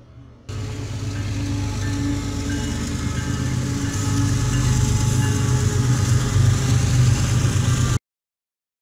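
Diesel locomotives and railcars rolling past at close range: a steady low engine drone with rushing wheel and rail noise, slowly getting louder. It starts suddenly about half a second in and cuts off suddenly near the end.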